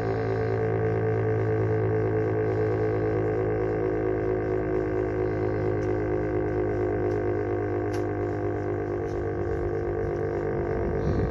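Federal Signal STH-10 Thunderbolt outdoor warning siren sounding a steady tone with a fast flutter, held at one pitch, during its routine monthly test.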